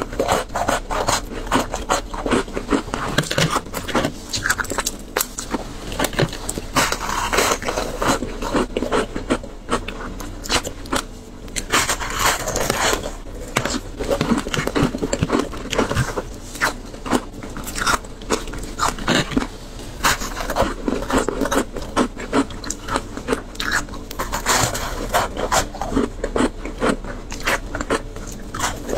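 Frozen shaved ice topped with passion fruit pulp being bitten and chewed: a dense run of sharp crunches and crackles.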